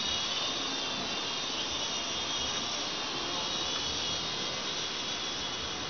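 A 6025 RC toy helicopter's small electric motors and rotors whirring steadily in flight: a high-pitched motor whine over a rush of air.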